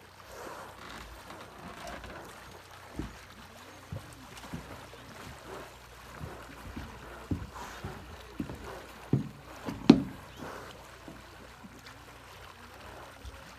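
Water lapping and trickling against a small boat's hull on calm water, with scattered soft knocks, the loudest about ten seconds in.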